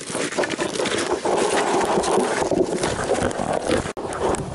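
Snowshoe footsteps crunching and scraping on packed snow, a dense run of crunches close to the microphone, cut off briefly near the end.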